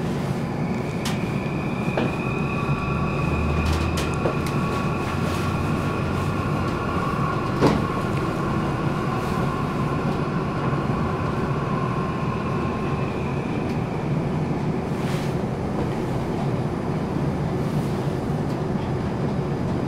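Cabin noise of an Incheon Airport Maglev UTM-03 train running along its guideway: a steady rumble with a high electric whine of several tones that comes in about a second in and fades out around fourteen seconds. A few sharp clicks, the loudest about halfway through.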